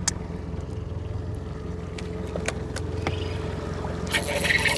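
Boat's outboard motor running steadily at low speed, a low hum with a steady tone over it, and a few sharp clicks from the fishing gear on the deck.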